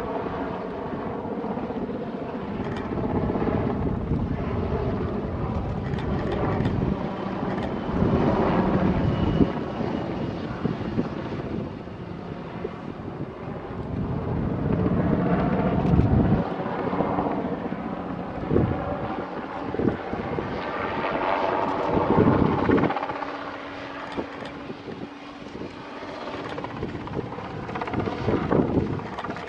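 Westland Wessex helicopter in flight, its rotor beat and turbine sound growing louder and softer in turns as it manoeuvres, with the loudest passages of rotor beat about a third, half and three quarters of the way through.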